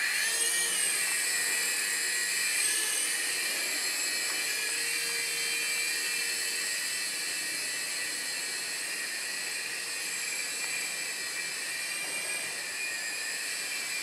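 Small coaxial remote-control helicopter's electric motors and rotors running in flight, a steady high-pitched whine of several tones that bends up in pitch in the first second as the rotors spin up.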